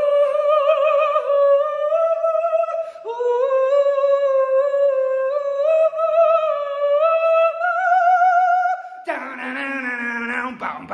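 A voice singing long held notes with vibrato in a small bathroom, climbing step by step in pitch over two phrases with a short break about three seconds in. Near the end a lower voice cuts in, talking or laughing.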